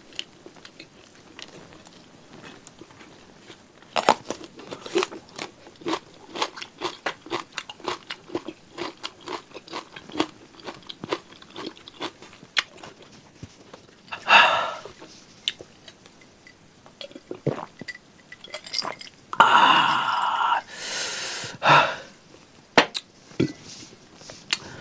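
Close-miked mouth sounds of chewing a mouthful of rice with spicy sambal: a long run of quick wet clicks and smacks. Twice, about halfway and again about three-quarters through, a loud breathy rush of air cuts in, lasting about a second and then about two seconds.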